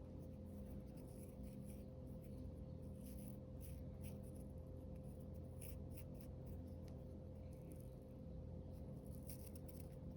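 Wood fire crackling faintly: scattered small pops and crackles over a steady low hum.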